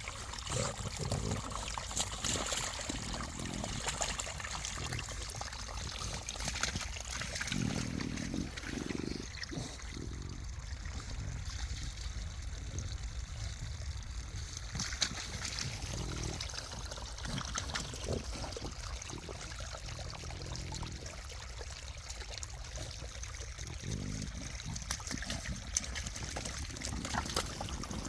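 Rainwater run-off trickling and splashing as it flows downhill, a steady water sound with small splashes throughout.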